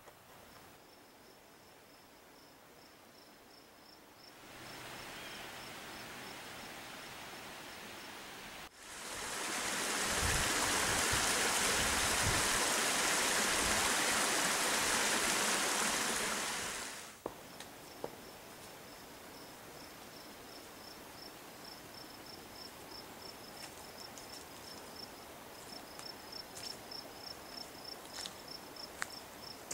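A small waterfall splashing down a rock face: a loud, steady rush that comes in about a third of the way through, lasts about eight seconds and cuts off suddenly. Crickets chirp in a fast, even trill before and after it.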